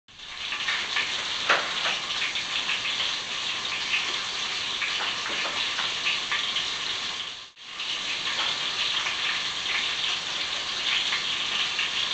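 Pork ribs frying in a pan, a steady sizzle with scattered crackles and pops. It cuts out for a moment about seven and a half seconds in.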